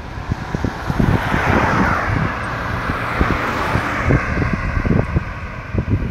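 A car driving past close by: its tyre and road noise swells over the first few seconds and fades after about four seconds. Irregular low thumps of wind buffet the microphone.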